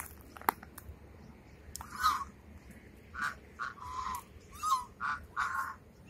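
Domestic geese honking: a run of short calls, starting about two seconds in and coming about every half second near the end. A single sharp click about half a second in.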